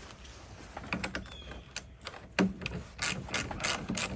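Socket ratchet clicking as it turns a 10 mm nut at the car battery: a few clicks about a second in, a knock near the middle, then a quicker run of about four clicks a second near the end.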